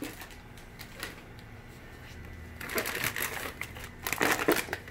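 Plastic fish-shipping bags crinkling and rustling as they are handled, in two bursts: one about halfway through and a shorter one near the end.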